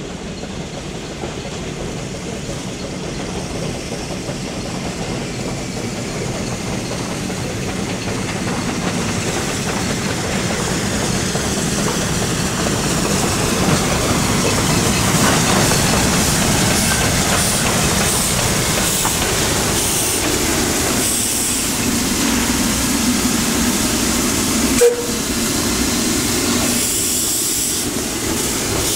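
Narrow-gauge steam locomotive approaching, its running and the rattle of its wheels on the rails growing steadily louder. A single sharp clank comes about 25 seconds in, and near the end steam hisses from the cylinder drain cocks as the engine draws level.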